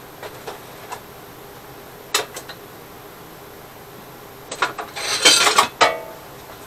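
Metal tools clinking and clattering as they are rummaged through: one knock about two seconds in, then a burst of rattling near the end.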